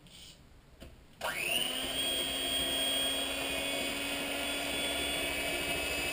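Electric hand mixer switched on about a second in, its motor whine rising quickly as it spins up, then running steadily as its beaters mix a flour dough in a bowl.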